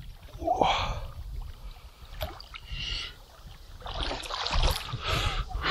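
Pond water sloshing and splashing in irregular bursts around a person's legs as he wades thigh-deep, with a low wind rumble on the microphone underneath.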